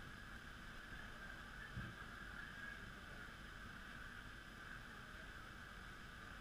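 Faint, steady outdoor background noise with a low rumble and a soft thump about two seconds in.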